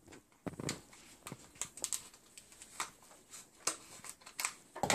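Scissors snipping at the tangled material around a plant's roots: a series of short, sharp snips and clicks at uneven intervals, with a louder one near the end.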